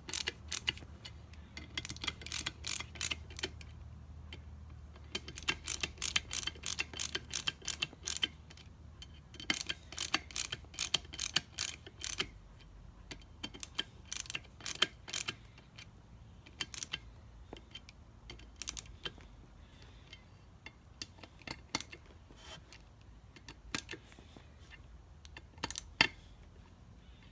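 Runs of rapid clicking from a ratchet tool fastening the small screws on a Mercedes 722.6 transmission valve body, coming in bursts of a second or two with pauses between. The runs thin out to scattered clicks in the second half.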